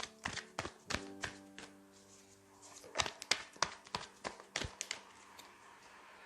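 A tarot deck being shuffled by hand, heard as a run of sharp card taps and slaps in two clusters, over soft background piano music.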